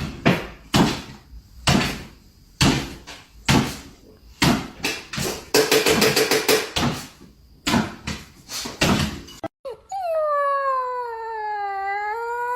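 A run of short, sharp sounds about once a second, then from about ten seconds in a dog's long drawn-out whine that dips in pitch and then rises again.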